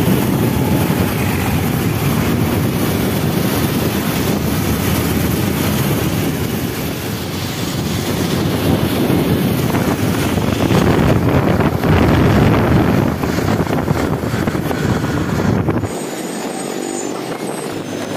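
Moving motor traffic on a road: a steady rumble and hiss of engines, tyres and wind. The deepest rumble drops away about sixteen seconds in.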